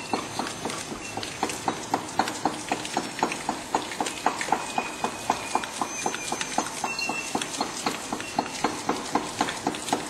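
Automatic four-side-sealing toothpick packing machine running: a steady mechanical clatter of clicks, about four or five a second.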